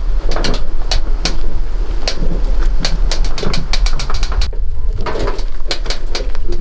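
Chickens clucking and giving low cooing calls, mixed with many sharp clicks and taps.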